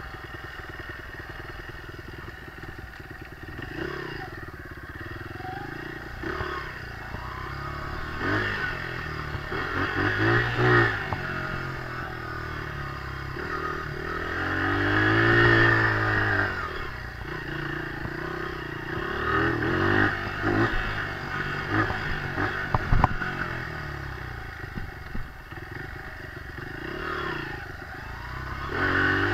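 Dirt bike engine being ridden, revving up and falling back again and again as the throttle is worked, loudest about halfway through. A few sharp knocks and clatter from the bike come about three-quarters of the way in.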